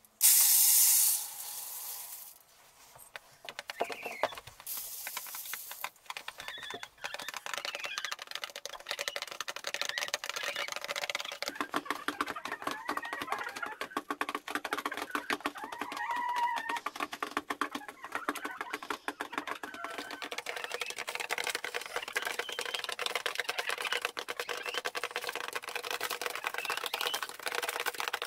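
Grain poured into a plastic-bottle feeder with a brief rushing hiss, then hens pecking grain from a car-hubcap feeder tray: a dense, rapid clatter of beak taps with soft clucking murmurs among it.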